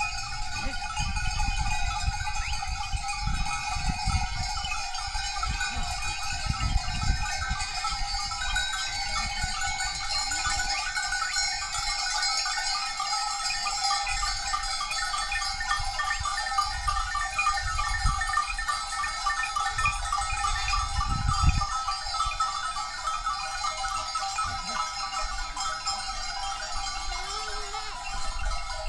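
Many livestock bells on a moving herd of goats and sheep, jangling and clanking continuously, with a few bleats. Irregular low rumbling bursts run underneath, the loudest about two-thirds of the way through.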